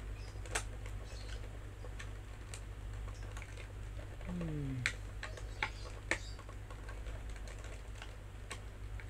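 Irregular sharp clicks and taps of plastic packaging being handled and worked open by hand, with a brief falling tone a little past four seconds in, over a steady low hum.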